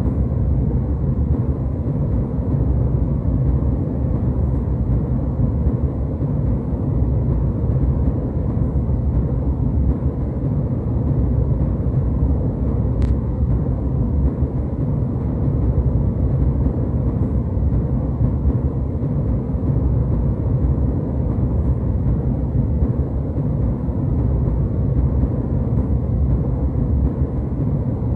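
Steady jetliner cabin noise in flight: an even, unbroken rumble of engines and airflow, strongest in the low end.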